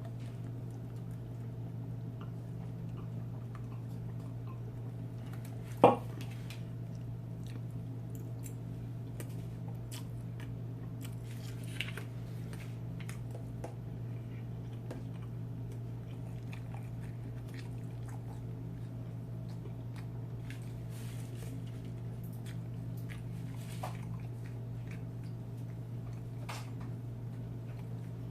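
A person chewing and eating takeout food, with scattered small clicks over a steady low hum. A single sharp knock about six seconds in is the loudest sound, with a smaller one about twelve seconds in.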